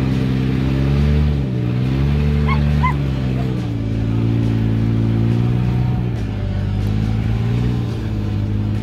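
Jeep engine revving up and down under load as it crawls up a steep rock slope in reverse, its pitch climbing and dropping several times.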